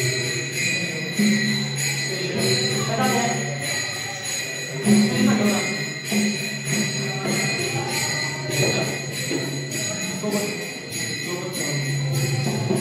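Music with small bells jingling in a steady rhythm and ringing on, over a low sustained tune.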